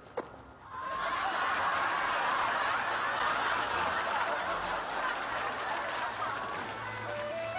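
Studio audience laughing, swelling up about a second in and holding steady.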